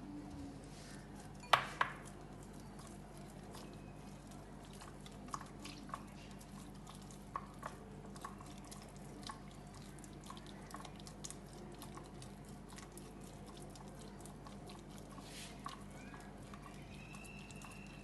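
Spoon stirring thick cake batter: faint wet squelching with scattered light clicks against the side of the dish, and two sharper knocks about one and a half seconds in.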